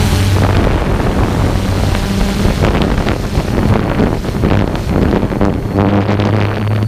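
A camera drone's motors and propellers humming steadily in flight, with wind buffeting its microphone in gusts, stronger from about halfway through.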